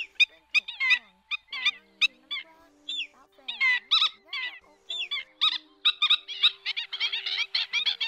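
Black-winged stilts calling: a dense run of short, sharp, yapping calls from several birds overlapping. The calls thin out for a moment about two to three seconds in, then crowd together again toward the end.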